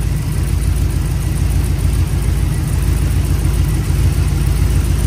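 Oldsmobile 403 cubic-inch V8 idling steadily at a low idle, with a slight lope to its beat.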